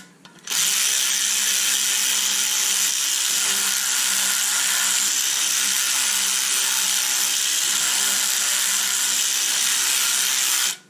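Power drill spinning the screw of a valve-spring compressor on a BMW M52 cylinder head, pressing the valve springs down, with a steady whir and hum. It stops for a moment at the start, then runs continuously for about ten seconds before cutting off suddenly near the end.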